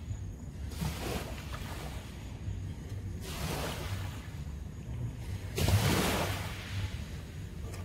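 Small waves breaking and washing up a sandy beach, three rushes of surf, the loudest about two-thirds of the way through.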